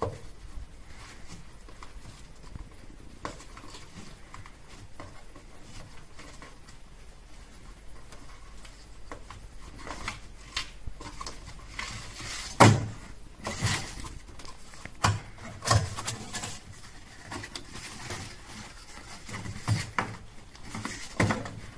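Paper gift box being unwrapped and opened by hand: ribbon and cardboard rustling, with short handling knocks and scrapes. Faint and sparse at first, then busier and louder in the second half, with the loudest knock about halfway through.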